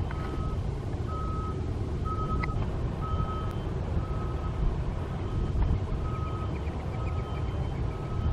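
A construction vehicle's reversing alarm beeping at an even pace, about one beep a second, over a steady low rumble.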